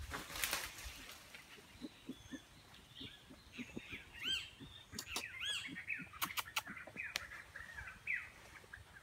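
Birds calling: a run of short, arching chirps mixed with sharp clicks, starting about three seconds in, after a brief hiss of noise at the very start.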